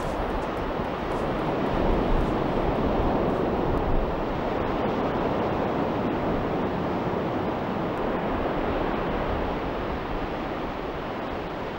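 Ocean surf breaking on the shore: a steady rush of waves, swelling a little about two and four seconds in.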